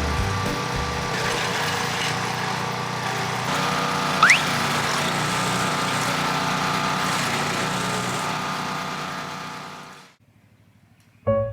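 Chainsaw engine running steadily, fading out about ten seconds in, with a brief rising whistle about four seconds in.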